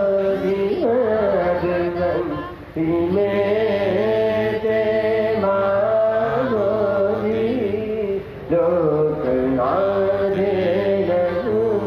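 Buddhist monks chanting: a sustained, droning vocal chant on long held notes, broken by short breath pauses about three seconds in and about eight seconds in.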